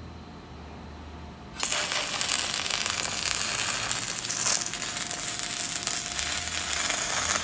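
Angle grinder grinding the steel of a vibrating screen frame: a loud, harsh, steady grinding hiss with a faint steady whine, starting about a second and a half in.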